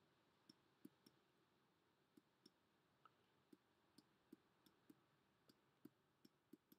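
Near silence broken by faint, irregular clicks, two or three a second, from a stylus tapping on a drawing tablet during handwriting.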